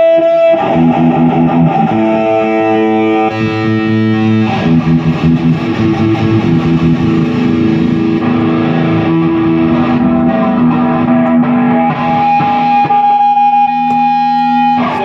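Electric guitar played through a Peavey 6505+ combo amp with a Zoom G1X Four multi-effects pedal in the amp's effects loop, with a distorted tone. Held, ringing notes and chords change every second or two.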